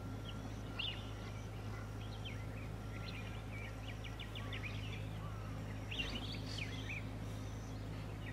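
Background birdsong: several small birds chirping and trilling, with a fast run of short repeated notes about three seconds in and a busier flurry of calls around six seconds, over a steady low hum.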